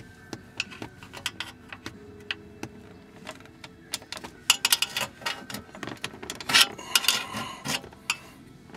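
Two small screwdrivers prying a car radio's mounting cage out of the dashboard plastic: a run of sharp clicks, taps and scrapes of metal on plastic, busiest about halfway in and again near the end.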